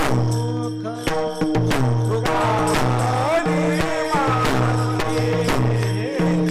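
Marathi devotional kirtan music: held low notes and an even beat of jingling hand percussion, with a voice singing in gliding phrases in the middle.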